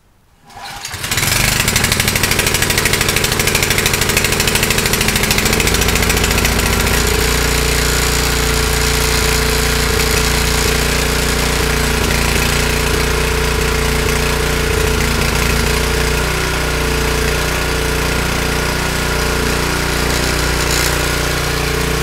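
Honda snowblower engine pull-started on full choke, catching on the first pull about a second in and running a little rough, then settling to a steady run as the choke is taken off. It now runs because its plugged carburettor main jet has been cleaned.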